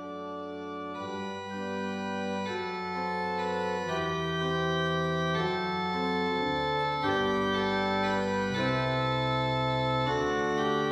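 Slow organ music: sustained chords over a low bass line, changing every second or two, swelling slightly at the start.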